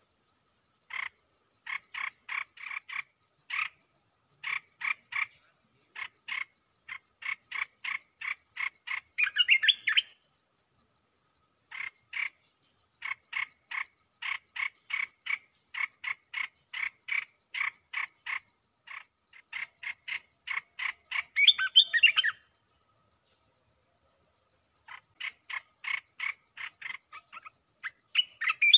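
Caged decoy bulbul calling in long runs of short, evenly repeated notes, about three a second, broken three times by brief warbling song phrases and twice by a pause of a second or two. A steady high-pitched insect buzz runs underneath.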